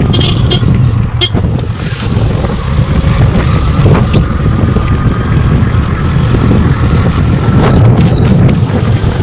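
Riding along a road: a vehicle running, with wind buffeting the microphone into a loud, steady low rumble and a few short knocks.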